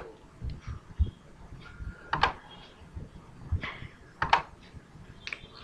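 A handful of scattered, sharp computer mouse clicks.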